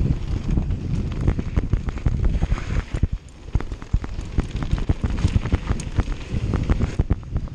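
Wind buffeting an action camera's microphone over the rumble of a downhill mountain bike's tyres on a loose dirt and gravel trail, with frequent clicks and rattles of the bike over rough ground. It drops briefly about three seconds in.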